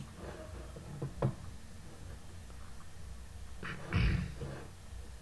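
A few short clicks and knocks from computer-desk handling over a low steady hum; the loudest is a dull thump about four seconds in.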